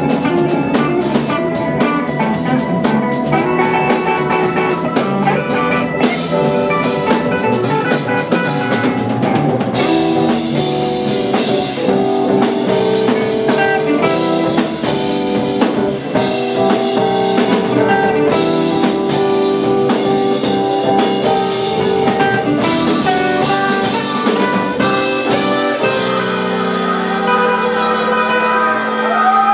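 Live band playing an instrumental on electric bass, drum kit with cymbals, and a hollow-body electric guitar. About 26 seconds in, the drums and bass drop out and sustained notes are left ringing, one of them wavering in pitch.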